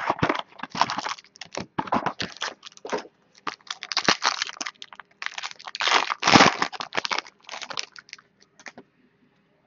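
Foil and plastic wrapper of a trading card pack being torn open and crumpled by hand: irregular crinkling bursts, loudest about six seconds in, thinning out near the end.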